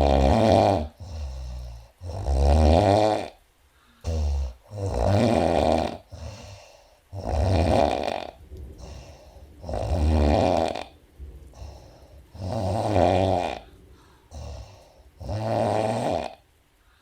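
A sleeping woman snoring: seven snores about two and a half seconds apart, each followed by a shorter, softer sound before the next.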